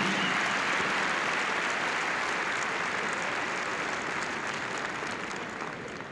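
Large indoor crowd applauding steadily, the applause slowly dying away.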